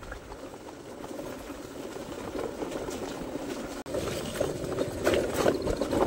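Footsteps of someone walking on a paved lane, over a steady rushing noise; after a short break about four seconds in, the noise grows louder and the steps stand out more.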